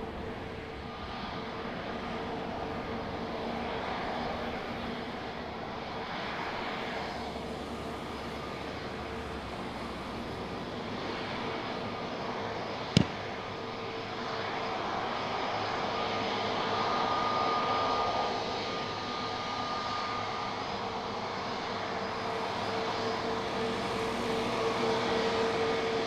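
Aircraft engines running: a steady whine over a broad rushing noise, swelling slightly a few times. A single sharp click about halfway through.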